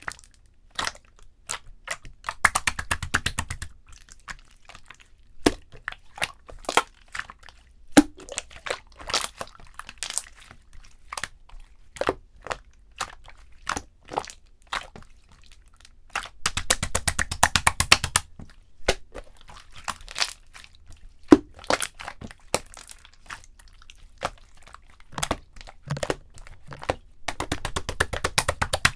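Purple slime squished and pressed by hand, giving sharp irregular clicks and pops, with three spells of rapid, dense crackling, near the start, about halfway through and near the end.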